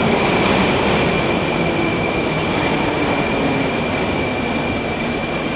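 Metro train running in the station: a loud steady rumble of wheels and running gear with a thin high whine over it, easing slightly.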